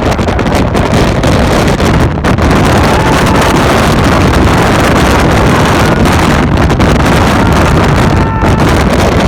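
Loud, steady rush of strong storm wind buffeting the microphone, with a heavy low rumble and gusty dips.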